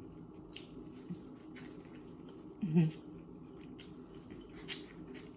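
Wet mouth sounds of someone biting and chewing a sauce-coated corn on the cob, with scattered small clicks. About halfway there is a short hummed 'mm' of enjoyment.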